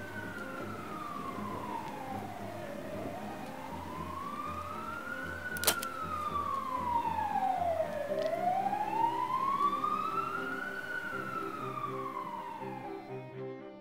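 Emergency-vehicle siren wailing, its pitch sliding slowly down and up in sweeps of a few seconds each, over low sustained string music that grows stronger about halfway through. A single sharp click sounds about six seconds in.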